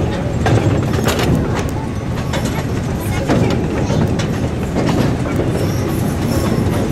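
Miniature amusement-park train rolling slowly along its narrow-gauge track, heard from aboard a passenger car: a steady low rumble with occasional clicks from the wheels over the rails.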